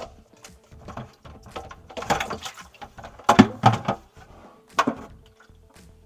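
Irregular knocks, clunks and rattles of hands working under a kitchen sink, disconnecting a garbage disposal's drain hoses and wiring, with the loudest knock about halfway through. A faint steady hum runs underneath.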